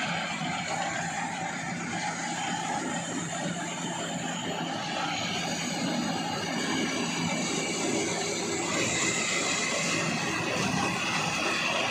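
Iseki HC 80P rice harvester's engine running steadily, growing a little louder in the second half.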